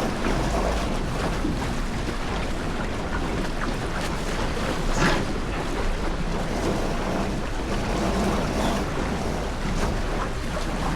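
Wind buffeting the microphone over water rushing along the hull of a sailboat under way, with a brief louder burst about five seconds in.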